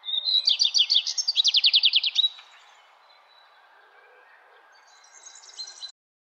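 A small songbird singing outdoors: a run of high, clear notes that speeds into a fast trill for about two seconds. A second short burst of song comes near the end, over faint steady outdoor hiss, and the sound then cuts off suddenly.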